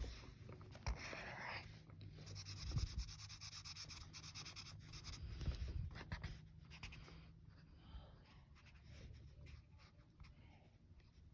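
Coloring strokes scratching on paper, short and irregular, with heavy breathing close to the microphone.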